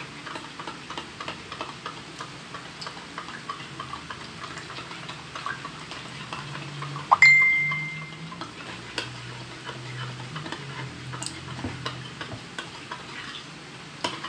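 Metal spoon stirring milk in a stemmed drinking glass, a rapid run of light clinks against the glass. About seven seconds in, one louder clink makes the glass ring briefly.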